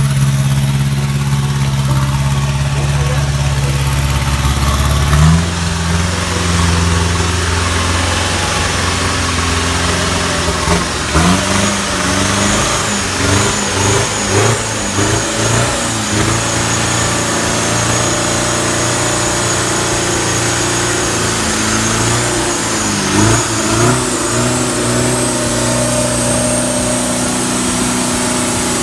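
Off-road vehicle engine running under load, its pitch rising and falling as it revs, with a thin steady high whine throughout.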